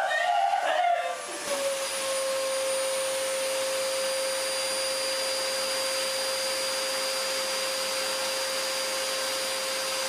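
Upright vacuum cleaner running with a steady, even motor whine. A brief wavering, howl-like vocal sound comes in the first second or so, before the vacuum noise settles.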